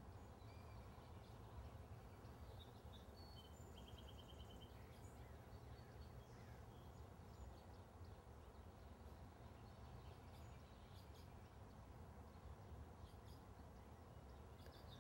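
Near silence: a faint steady low hum with a few faint bird chirps, one a short rapid trill about four seconds in.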